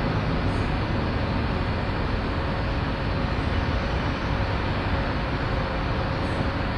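Steady low background noise of a city railway yard, with a faint constant hum and no distinct events.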